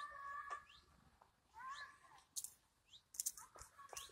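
Female cat meowing three times, short meows about a second and a half apart. Faint high chirps of birds recur in the background, with a few brief clicks.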